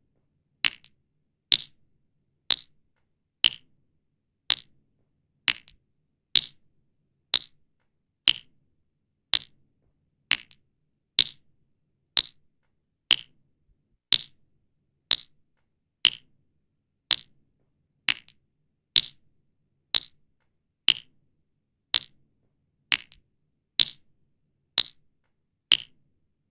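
Water droplets dripping one at a time, each a short, sharp plink, evenly spaced about once a second.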